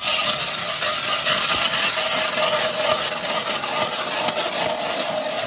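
Hand-cranked ice auger boring a hole through reservoir ice, its blades cutting and grinding the ice in a steady scraping noise.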